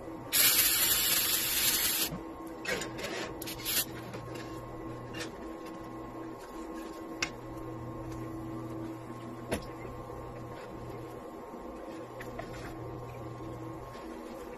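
Water spraying in the pre-wash sink, loud for about two seconds, then a few short spurts. Under it a steady machine hum runs throughout, with a few light clicks and clinks of the wire basket and items being handled.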